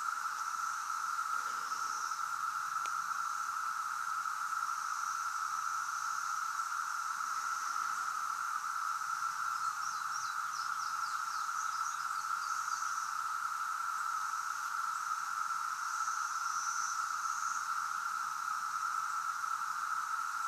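Chorus of 17-year periodical cicadas: a steady, unbroken droning buzz from masses of males singing together, with a few faint high chirps about ten seconds in.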